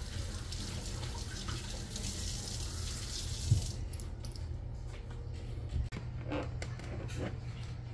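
Kitchen tap running into the sink for about three and a half seconds, then shut off with a knock; a few light clatters follow.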